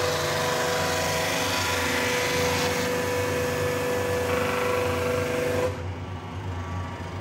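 Makor CST 6 brush sanding machine running, a steady mechanical noise with a constant whine over a low hum. About six seconds in it gets quieter and duller, and the whine drops out.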